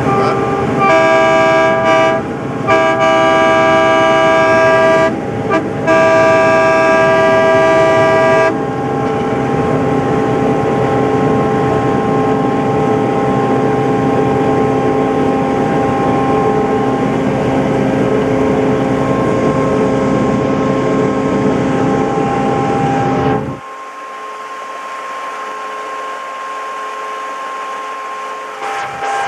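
Horn of grand-scale F-unit locomotive No. 325 sounding the grade-crossing signal: two long blasts, a short one and a final long one, a multi-note chord. Under and after it the locomotive runs steadily along the track; about 23 seconds in the low rumble drops out and the sound turns thinner and quieter.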